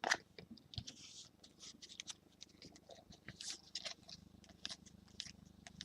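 Trading cards being slid and flipped through by hand: a run of faint, irregular scrapes and light clicks of card stock.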